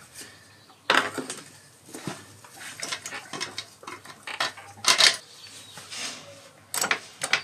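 Irregular metal clinks and knocks from parts and tools being handled while refitting a dirt bike's rear wheel, loudest about a second in and again about five seconds in.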